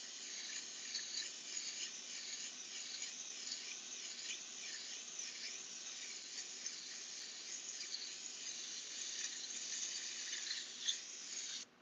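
Airbrush hissing steadily as it sprays paint, with a slight rhythmic waver as the trigger is worked; it cuts off suddenly near the end.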